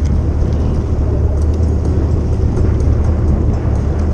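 Jet ski engine idling with a loud, steady low rumble, with water noise along the hull.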